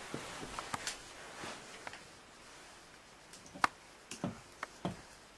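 A door handle and latch being worked: a handful of sharp clicks and knocks, the loudest about three and a half seconds in, after faint soft rustling.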